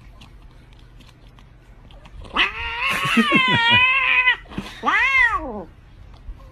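A domestic cat calling out twice while eating a lickable treat from a tube: one long wavering yowl starting about two seconds in, then a shorter meow that rises and falls.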